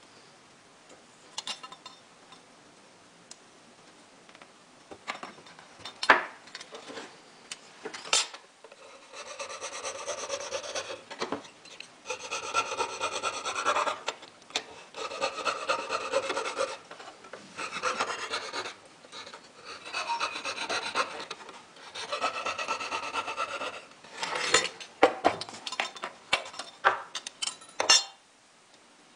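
Hand file scraping along the edge of a thin silver sheet in a run of back-and-forth strokes, each lasting a second or two, through the middle of the stretch. Before and after the filing come scattered taps and clinks as the metal piece is handled on the bench.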